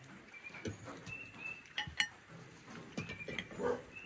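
Birds chirping in short repeated calls, with a couple of sharp clinks of cutlery on plates and a knife on a board about two seconds in.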